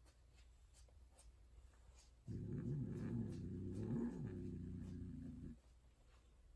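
Tortoiseshell Persian female cat giving one long, low, wavering yowl during mating, starting about two seconds in and stopping about a second before the end.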